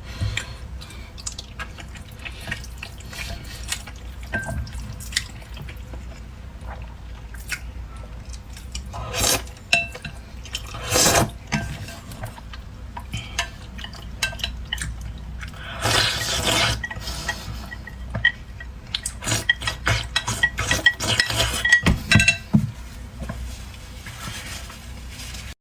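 Noodles being slurped and chewed close to the microphone, with wet mouth sounds and utensils clicking against the bowl. They come in irregular bursts, with a quick run of sharp clicks late on.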